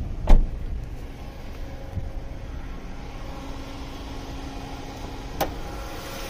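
A car door shuts with a heavy thump just after the start, over a car engine idling steadily. Near the end a sharp click comes as the hood latch is released and the hood lifted.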